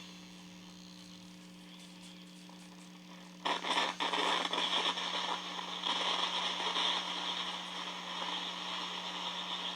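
Electronic static from an electromagnetic-field detector setup over a steady electrical hum. About three and a half seconds in, a louder hissing crackle starts suddenly and keeps fluctuating.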